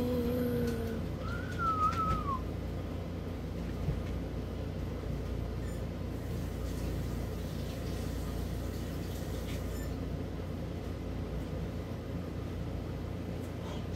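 Steady low hum of a running ceiling fan. About a second and a half in there is one short, high, wavering whine that rises and then falls.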